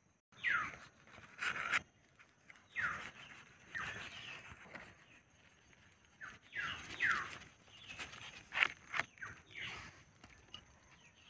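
Large knife sawing through raw pork belly rind and fat on a leaf: a series of short rasping strokes, each sliding down in pitch, coming in uneven groups.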